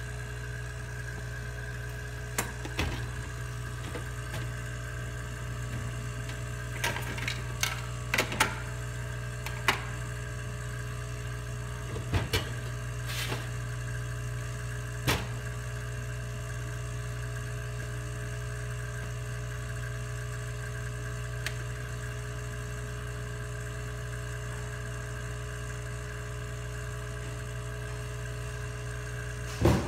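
Bezzera Strega heat-exchanger espresso machine heating up its refilled boiler: a steady low hum, with scattered short clicks and taps.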